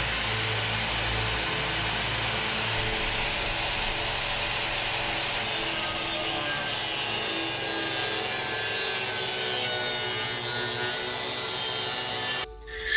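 Power tool cutting a knife blade blank out of thin 1095 carbon steel: a steady, unbroken cutting noise that stops abruptly near the end.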